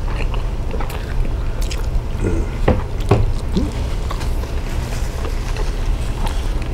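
Close-miked chewing and wet mouth clicks of people eating a meal with their hands, over a steady low hum. A few brief pitched mouth sounds come around the middle.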